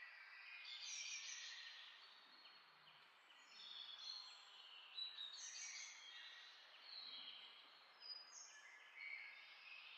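Faint bird chirping: many short, high chirps overlapping over a light background hiss.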